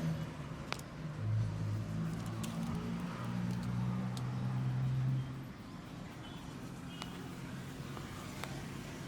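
Street traffic noise: a motor vehicle's engine hums steadily for the first five seconds or so, then quieter road noise with a few sharp clicks.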